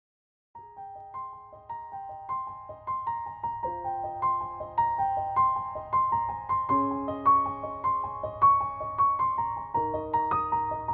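Background music: a gentle piano melody of single notes, joined by fuller chords, starting about half a second in.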